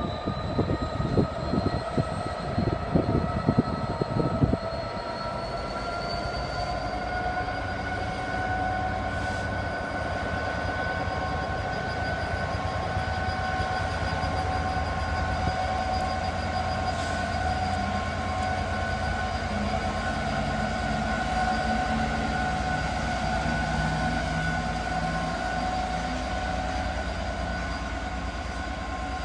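Class 66 diesel-electric freight locomotive working a loaded stone train, its turbocharged two-stroke V12 running under power. The whine rises over the first several seconds and then holds steady over a low rumble. A few sharp knocks sound in the first four seconds.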